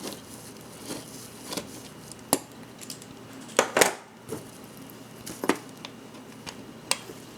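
Small metal clicks and taps of watchmaker's tools and watch case parts being handled and set down on the bench, about ten sharp ticks at irregular spacing, the loudest a quick double click about three and a half seconds in.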